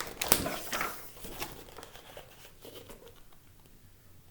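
Paper rustling as the book is handled, with a few crisp crinkles in the first second or so that then die away.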